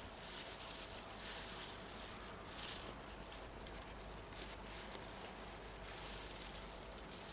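Irregular soft crunching and rustling, about one or two crunches a second.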